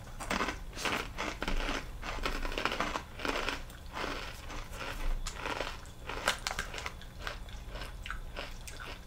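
Takis Blue Heat rolled tortilla chips being bitten and chewed close to the microphone: a run of crisp crunches, thick over the first few seconds and thinning to scattered ones toward the end.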